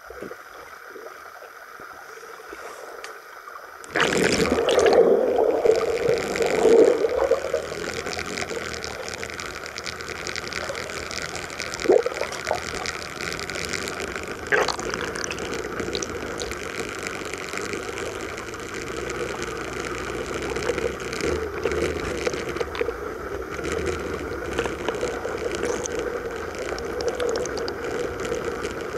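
Muffled underwater water noise in a swimming pool, picked up by a submerged camera: a sudden burst of bubbling and churning water about four seconds in, then a steady wash with a few sharp knocks.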